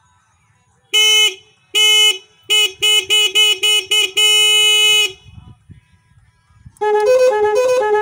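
Electronic horn on an e-rickshaw being sounded from the handlebar button: two short toots, a quick run of about six toots, then one longer blast, each with a slight drop in pitch as it cuts off. About seven seconds in, a repeating two-note electronic melody starts up.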